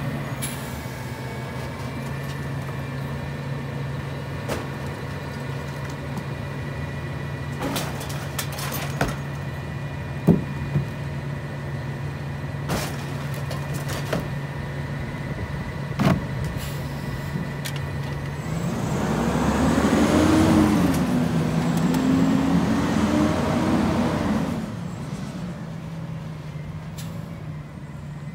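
McNeilus rear-loader garbage truck idling while recyclables and bins knock and clatter against the hopper. About two-thirds through, the engine revs up and the hydraulics whine for about six seconds as the packer blade cycles to compact the load, then the truck settles back.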